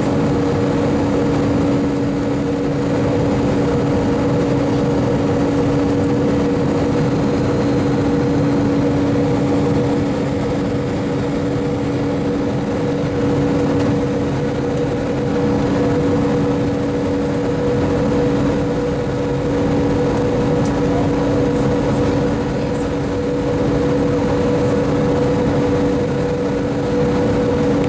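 Airliner cabin noise during the approach: the jet engines and the airflow give a steady rushing sound with two steady humming tones, heard from inside the cabin.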